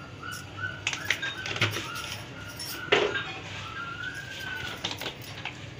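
A bird chirping in short whistled calls, repeated several times, with one longer call about four seconds in. A few light clicks and one sharp knock about three seconds in.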